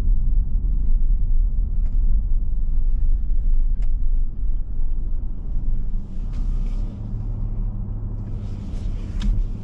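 Car interior driving noise: a steady low rumble of engine and tyres on the road, which eases and turns quieter about six seconds in. A few faint clicks sound over it.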